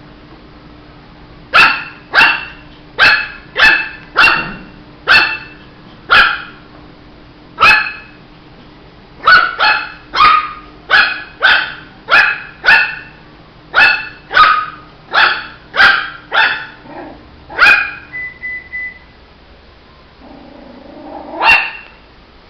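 Shih tzu puppy barking: a run of about twenty short, sharp yaps, one or two a second, that stops about eighteen seconds in, then one more bark near the end.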